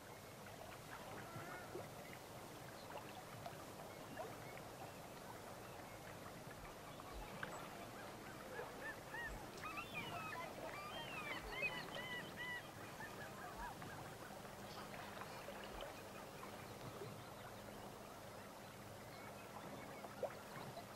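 A flock of water birds calling faintly over a steady outdoor hiss. The many short calls are bunched together about halfway through.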